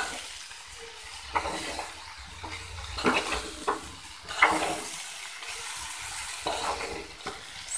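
A metal spoon stirring cauliflower curry in a metal pot, with a few scrapes and knocks against the pot, over a steady sizzle of the spiced mixture cooking.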